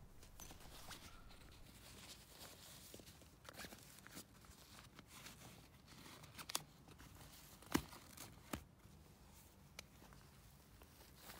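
Faint rustling of cloth as black fabric covers are worked over the spoked wheels of an Inglesina Classica pram, with a few sharp clicks, the loudest about two-thirds of the way through.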